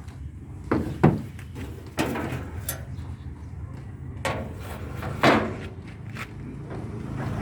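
Sharp clunks and knocks from a Jeep door and its lock being worked, about five in all, the loudest about a second in and again past five seconds in, over a steady low hum.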